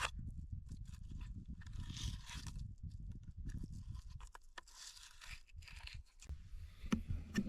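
Fillet knife working a walleye fillet off its skin: irregular scraping and tearing strokes against the skin and board, with handling noise.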